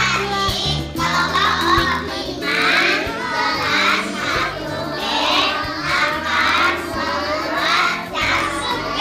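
Music with a child's singing voice over a backing track, like a children's song, sung in short phrases about once a second.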